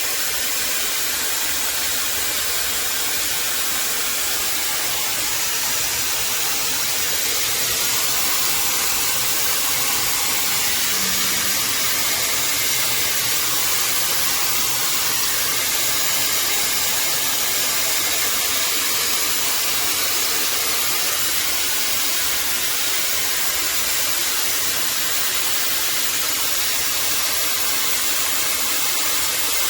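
Shark FlexStyle hair dryer running steadily, a constant rush of air.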